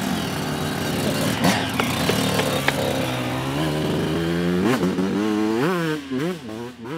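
2003 Suzuki RM125 two-stroke motocross engine running at a steady low speed, then revved up and down several times in quick blips over the last couple of seconds.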